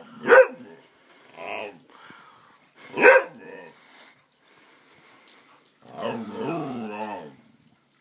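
A dog barking sharply twice, about three seconds apart, with softer grumbling sounds in between. About six seconds in comes a longer, wavering grumble of over a second, the 'talking' of an upset dog.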